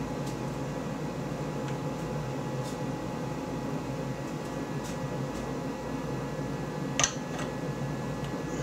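Steady background machine hum, like a running fan, with faint steady tones, and one sharp click about seven seconds in.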